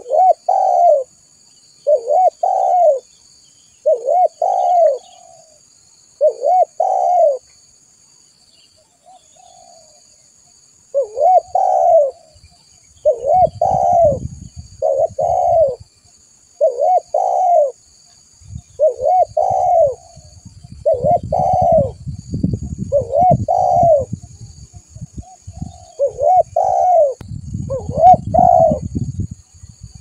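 Spotted dove (tekukur) cooing: short, repeated coo phrases, about one every two seconds, with a break of a few seconds about a third of the way in. A low rumbling noise runs under the calls in the second half.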